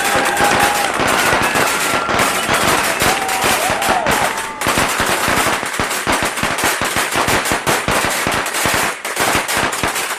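A string of Chinese firecrackers going off in a rapid, unbroken crackle of sharp bangs.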